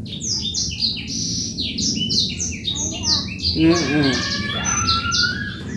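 Birds chirping busily: many short, high, falling chirps in quick succession over a steady low rumble, with a brief warbling call about three and a half seconds in.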